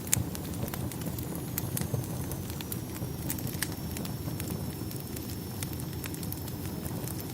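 Wood fire crackling in a fireplace: a steady low rumble of flames with frequent sharp pops and snaps, one louder pop just after the start.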